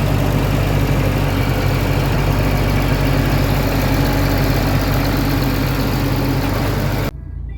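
Caterpillar diesel engine idling steadily, a loud, even run that cuts off abruptly near the end.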